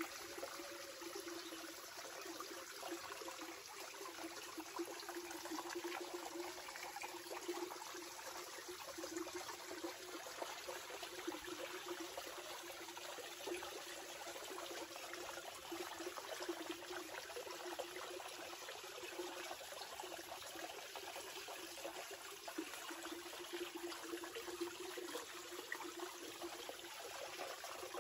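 Steady trickling water, with a low wavering hum beneath it that drops out briefly now and then.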